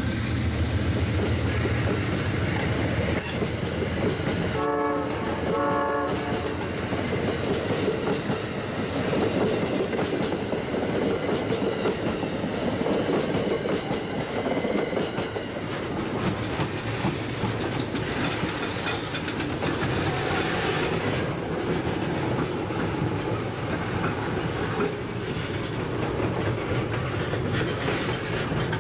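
A passenger train running past with steady wheel and rail noise and clickety-clack over the joints. About five seconds in, a train horn sounds two short blasts, about a second apart.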